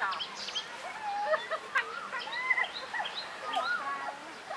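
Chickens and other birds calling over one another: short chirps and brief curving calls, with one sharp click a little under two seconds in.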